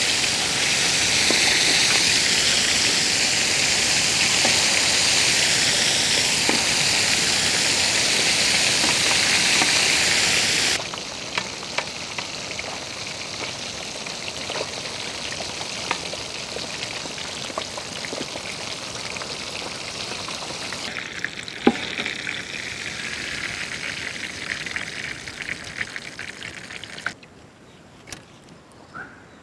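Karimeen (pearl spot) fish deep-frying in hot oil: a loud, steady sizzle that drops abruptly to a quieter sizzle with scattered crackles and pops about eleven seconds in. It falls to a low background near the end, with a few light clicks.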